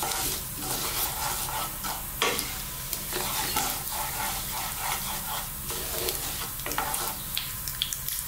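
Cumin and black mustard seeds sizzling in hot sunflower oil in a nonstick pan while a wooden spatula stirs and scrapes through them. Scattered crackling pops come more often near the end as the seeds begin to pop, the sign that the oil is hot enough to temper the whole spices.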